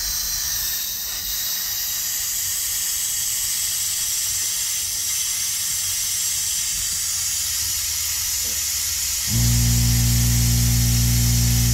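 Steady hiss of compressed air through an air-powered vacuum brake bleeder as it draws brake fluid out of the open caliper bleeder screw. About nine seconds in, a louder steady hum starts suddenly: the air compressor's motor kicking on.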